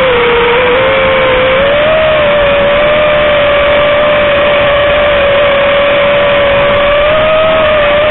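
FPV quadcopter's electric motors and propellers whining steadily, the pitch wandering slightly up and down with the throttle.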